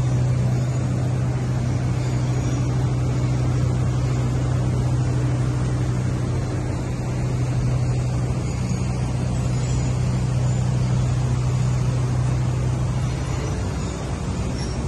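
Steady low machine drone with an even rushing noise over it, unchanging throughout, like a motor running nearby.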